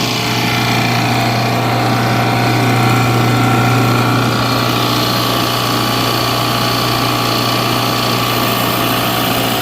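JB F6 refrigerant recovery machine running steadily while pulling refrigerant out of an air-conditioning system into a recovery cylinder: an even, loud motor hum with a low drone and higher whine.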